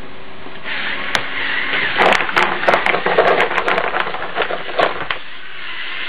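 LEGO Technic RC crawler's electric drive motors whining as it climbs a pile of rocks, with the stones clattering and knocking under the tyres from about two seconds in until about five seconds.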